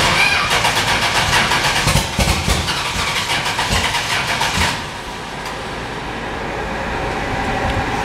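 Chrysler 440 big-block V8 with twin four-barrel carburetors, revved by hand at the throttle linkage and held up for about four and a half seconds, then dropping back to idle.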